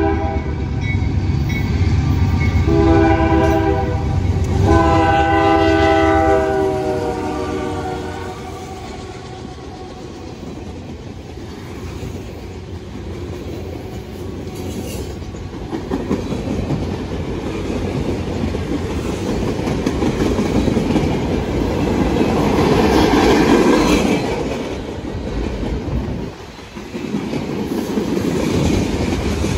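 A freight train's diesel locomotive air horn sounds a multi-note chord: the end of one blast, a short blast, then a long one, over the deep rumble of the locomotives as they approach and pass. The freight cars then roll by with a steady clickety-clack of wheels over the rail joints, the clatter swelling for a while about two-thirds of the way through.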